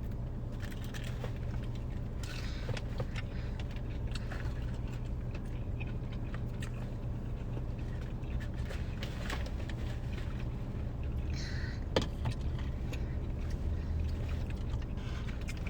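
Steady low hum of a car idling, with scattered small clicks and crunches of fried fast food being eaten close to the microphone; a sharper click about twelve seconds in.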